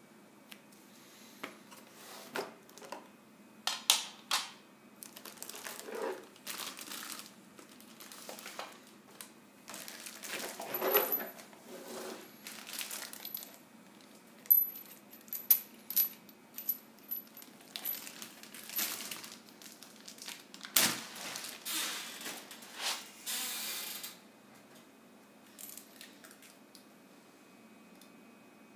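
Unpacking noises: plastic wrapping crinkling, cardboard and paper rustling, and light metallic clinks from the parts of a chrome basin mixer tap and its fittings, in irregular bursts with a sharp click about 21 seconds in. The handling dies down to faint occasional ticks over the last few seconds.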